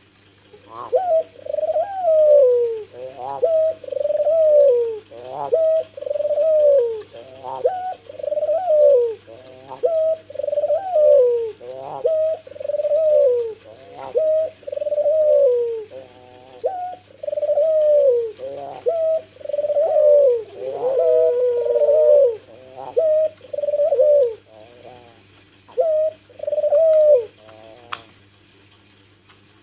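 White (albino) Barbary dove, the domestic ring-necked dove, cooing in a long run of repeated phrases, each phrase falling in pitch, with short pauses between them; it starts about a second in and stops near the end.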